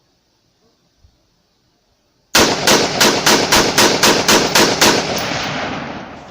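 WK180-C semi-automatic rifle firing 75-grain Hornady BTHP rounds in a quick string of about ten shots, roughly four a second, emptying a 10-round Mission First Tactical magazine; the shots start about two seconds in and their echo trails off after the last one.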